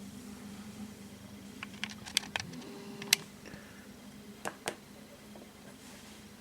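Faint steady hum of a model railway turntable's stepper motor drive, with a handful of sharp clicks between about two and five seconds in and a brief higher tone in the middle.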